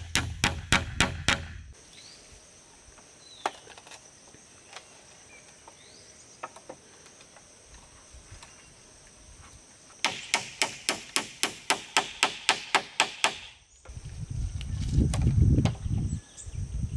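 Rapid, evenly spaced knocks, about four a second, in two runs: one stops about two seconds in, the other lasts from about ten to fourteen seconds in. A loud low rumble follows near the end.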